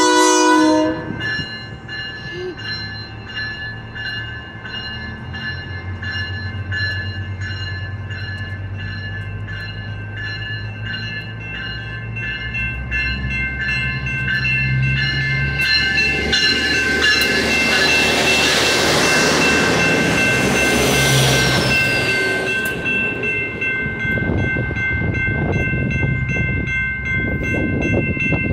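SMART Nippon Sharyo diesel multiple unit departing: a short horn blast at the start, then its diesel engine drone building as it pulls away. In the middle there is a loud rush as the train runs past. A level-crossing bell rings steadily throughout.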